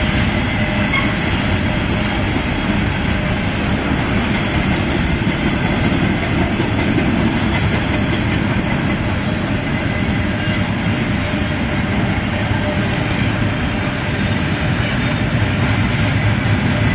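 BNSF intermodal container train rolling steadily past, the wheels running on the rails at an even level.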